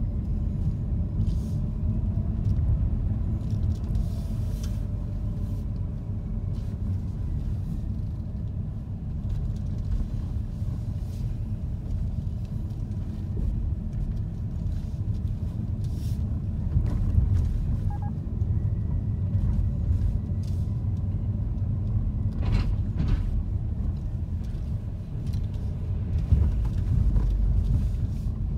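Car's engine and road noise heard from inside the cabin as a steady low rumble while driving at low speed, with a few brief light knocks.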